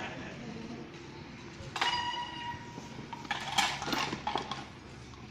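Bike polo mallets and bicycles clashing in play: a sharp metallic clink that rings briefly about two seconds in, then a quick cluster of clacks and clinks about a second and a half later as the players scramble for the ball.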